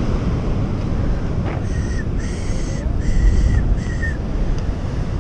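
Wind buffeting the microphone over the rumble of surf below. From about one and a half seconds in, four short high-pitched calls, each holding a steady tone, follow one another and stop about four seconds in.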